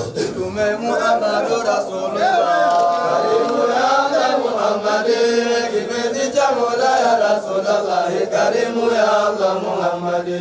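A sung Islamic devotional chant, voices singing in long, wavering lines with several held notes.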